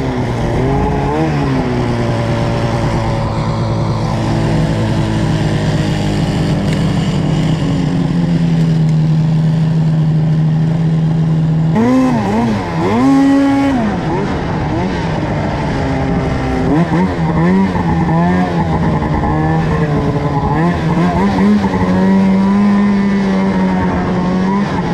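Arctic Cat M800 snowmobile's two-stroke twin engine, fitted with a BMP aftermarket exhaust can, running hard under way at fairly steady high revs. About halfway through the revs swing rapidly up and down for a couple of seconds with the throttle, then waver for the rest of the ride.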